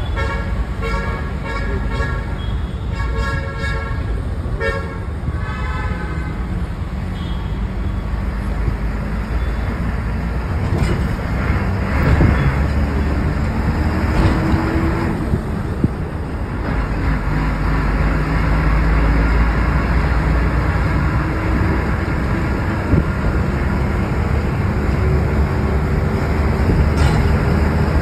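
Road traffic heard from inside a moving vehicle: several short horn blasts in the first five seconds or so, over a steady engine and road rumble. After that the rumble carries on, with the engine note rising a few times as the vehicle picks up speed.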